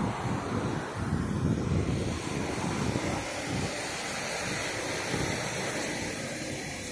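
Traffic passing on a city street, with wind rumbling on the microphone; the noise drops off near the end.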